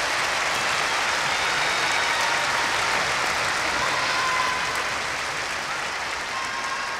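A large arena audience applauding steadily, the clapping easing off slightly about two-thirds of the way through.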